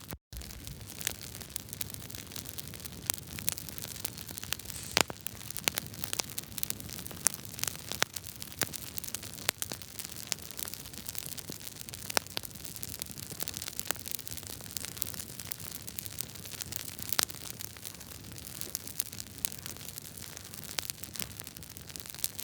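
Wood fire crackling in a fireplace: a steady hiss with frequent irregular sharp pops and snaps, a handful of them louder than the rest.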